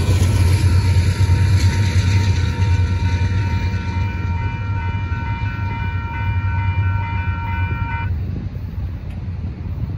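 Railroad crossing warning bell ringing steadily, then cutting off suddenly about eight seconds in as the crossing clears. Under it runs the low rumble of the freight train that has just passed, slowly fading.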